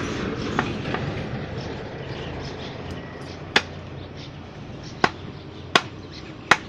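Butcher's cleaver chopping meat: single sharp chops at irregular intervals, two faint ones near the start and four louder ones in the second half.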